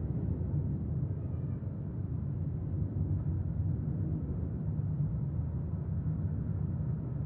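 Steady low rumble of a jet airliner's engines and rushing air, heard inside the passenger cabin in flight.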